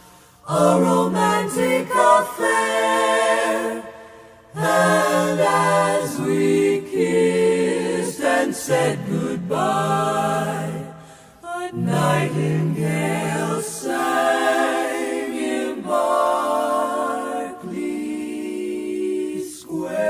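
Four-part a cappella vocal quartet (soprano, alto, tenor and bass) singing a slow ballad in close jazz harmony. The chords are sustained, with brief breaks between phrases about four seconds and eleven seconds in.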